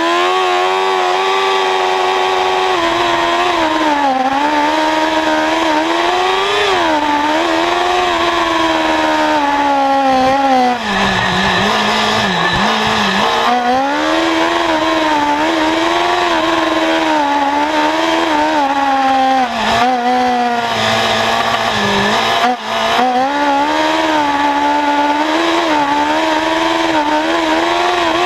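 Formula SAE race car engine at high revs, heard from a camera mounted on the car, its pitch rising and falling continuously as the car accelerates and slows through an autocross cone course. There are a few brief drops in the engine note, about a third of the way in and twice more around three-quarters of the way through.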